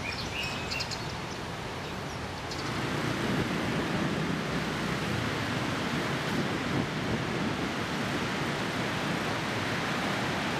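Street traffic of motor scooters riding past: a steady engine-and-tyre noise that gets louder about two and a half seconds in. Before that, a quieter hiss with a few faint chirps.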